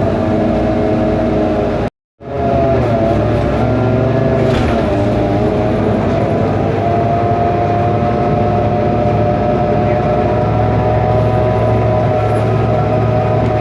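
Cummins ISBe Euro 5 turbo-diesel engine of a 2012 BMC Belde city bus heard from inside the cabin while under way: a steady drone with a whining tone that shifts a little in pitch, an engine sound the uploader calls faulty. The sound cuts out briefly about two seconds in.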